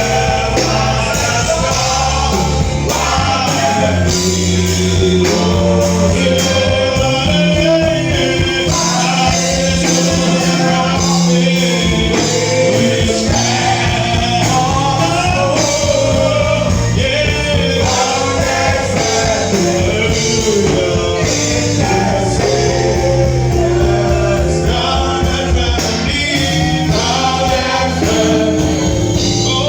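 Gospel worship music: singing over band accompaniment with a steady, sustained bass line.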